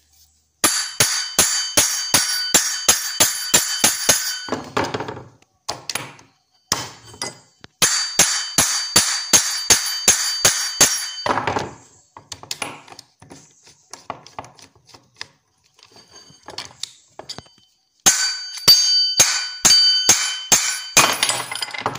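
Rapid hammer blows on a steel brush cutter clutch bell held in locking pliers, about four a second in three runs, the bell ringing after each blow, knocking the dented shaft bearing off. Quieter clinks of metal being handled between the runs.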